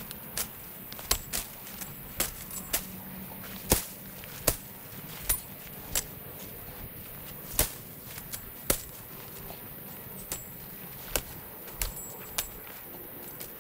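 Irregular sharp cracks and snaps, one or two a second, of brush and branches being hacked with a machete and pushed through while clearing a woodland path on foot.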